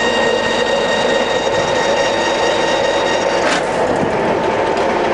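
Colchester Master 2500 geared-head centre lathe running steadily with its spindle at about 130 rpm: a steady gear-drive noise with a high whine that fades about three and a half seconds in, where a single click is heard.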